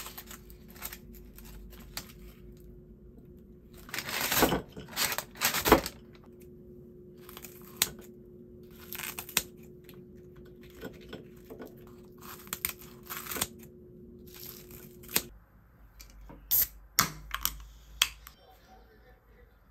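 Crinkling, tearing handling noises over a steady low hum as fried snacks are handled. After the hum stops, a few sharp clicks near the end as an aluminium soda can's pull tab is opened.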